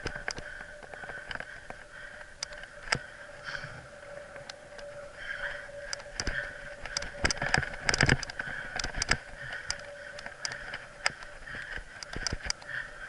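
Mountain bike ridden down a dirt singletrack: steady tyre and trail noise with the bike and camera mount rattling, broken by sharp clicks and knocks as it jolts over bumps, thickest about eight seconds in. A faint steady whine sits underneath.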